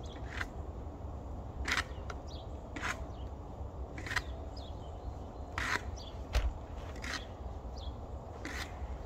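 Footsteps crunching in deep fresh snow, about one step a second, over a low rumble of wind on the microphone, with faint bird chirps.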